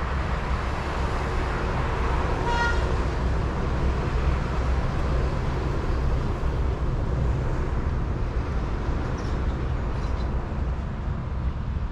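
Steady road-traffic rumble, with a short vehicle horn toot about two and a half seconds in.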